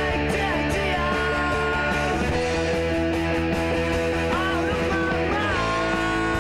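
Rock music with held notes that bend in pitch.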